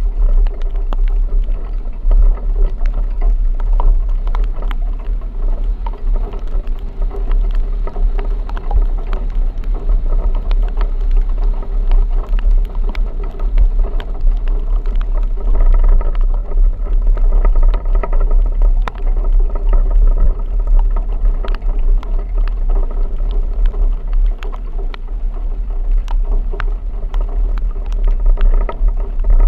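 Vehicle driving through a rainstorm: a steady low rumble with a humming drone, and many sharp ticks of rain striking throughout.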